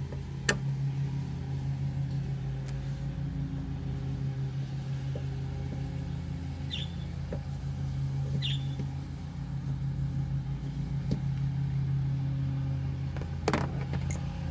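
A steady low mechanical hum, with a few light clicks and two short squeaks as the last screw of the door panel, in the inside door handle, is worked out.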